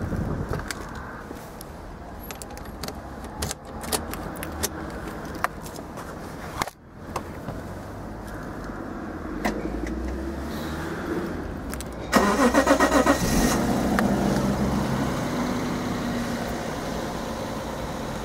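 Clicks and knocks of a car door and keys as someone gets into a first-generation Lexus IS. About twelve seconds in, its straight-six engine is cranked by the starter for about a second, catches and settles into a steady idle.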